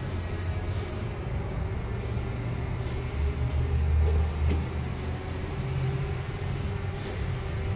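A steady low rumble that swells around four seconds in, with a faint steady buzz from a drone flying overhead.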